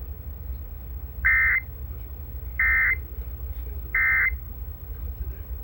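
Emergency Alert System end-of-message signal: three short bursts of buzzing digital data tones about a second and a half apart, marking the end of the Amber Alert broadcast.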